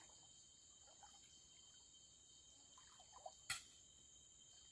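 Faint, steady, high-pitched chorus of night insects, with one sharp click about three and a half seconds in.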